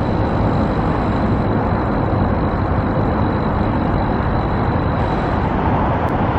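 Steady road-traffic noise: a continuous, even rumble of vehicles with no breaks.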